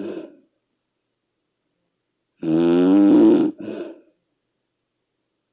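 Very loud snoring of a sleeping person: the tail of one snore at the very start, a pause, then one full snore about two and a half seconds in, lasting a little over a second and trailing off into a softer breath.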